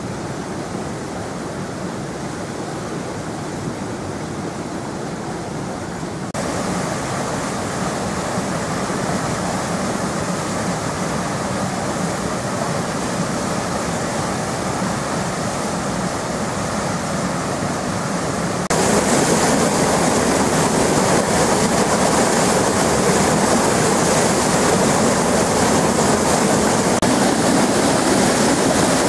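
A small creek in flood after heavy rain: swollen, muddy water rushing and churning over a plank in a steady rush of noise. The sound steps up suddenly to a louder level twice, about a fifth of the way in and again about two thirds of the way in.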